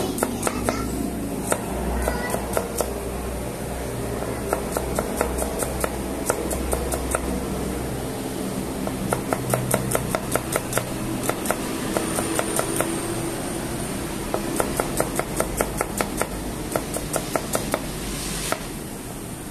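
A kitchen knife slicing red onion on a cutting board: quick runs of sharp taps, several a second, as the blade strikes the board, with short pauses between runs. A steady low hum runs underneath.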